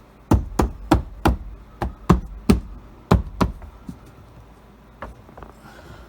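A quick run of about ten sharp knocks, roughly three a second, tapping the rubber seal of the car's roof antenna into place; they stop after about three and a half seconds, with a couple of fainter taps later.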